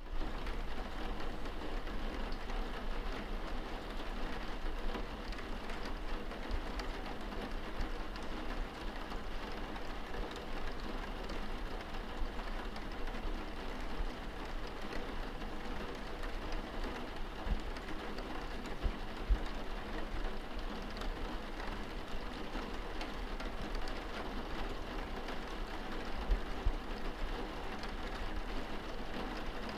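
Steady rain against a window pane, heard from inside the room: a dense patter of small drop ticks over a low rumble.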